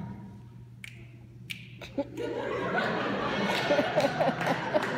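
Audience laughing and chuckling. The laughter swells up about two seconds in, after a few faint clicks.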